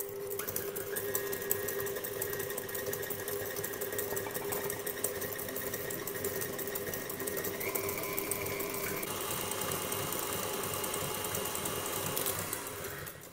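KitchenAid Ultra Power stand mixer running with its wire whip beating egg yolks, sugar and melted butter in its stainless steel bowl: a steady motor hum and high whine with fine rapid clicking, the whine stepping up in pitch about eight seconds in.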